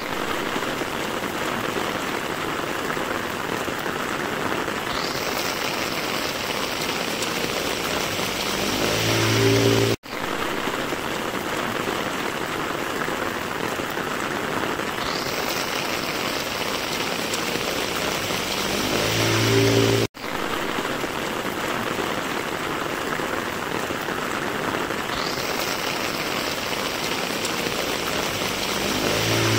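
Heavy rain pouring onto a wet street and pavement, a dense steady hiss. About every ten seconds a low hum swells up under it and the sound cuts out for a split second, the same stretch of rain repeating.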